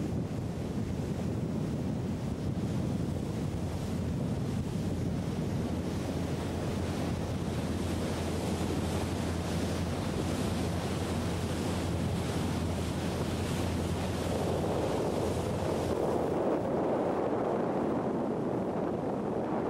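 Kingfisher Fastcatch motor boat running at planing speed, its engine a steady low drone under the rush of spray and water off the hull, with wind buffeting the microphone. The rush of water swells for a few seconds in the second half as the boat passes close.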